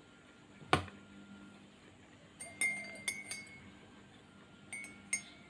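A single sharp knock just under a second in, then a metal teaspoon clinking against the inside of a ceramic coffee mug as coffee is stirred: a run of ringing clinks from about two and a half to three and a half seconds, and two more near the end.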